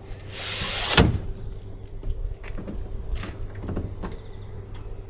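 The driver's cab emergency exit window of an AEC Routemaster bus being worked out of its frame: a short rising sliding, scraping noise that ends in a sharp knock about a second in, followed by a few lighter knocks as it is handled, over a steady low hum.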